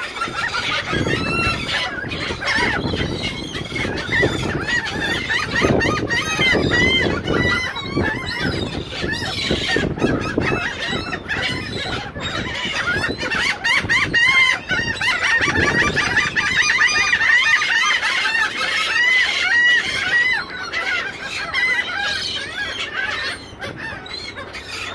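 A flock of laughing gulls calling over one another without a break, many short rising-and-falling cries overlapping as the birds crowd together over food.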